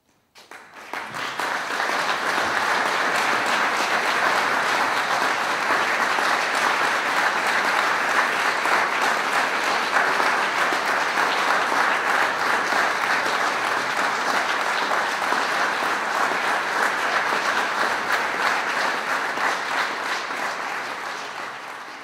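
Audience applauding, a dense steady clapping that swells within the first two seconds and fades out near the end.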